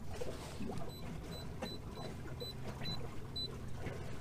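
Short, high electronic beeps from a Simrad fishfinder display, about two or three a second, as the gain is stepped down on the touchscreen, over a low steady hum.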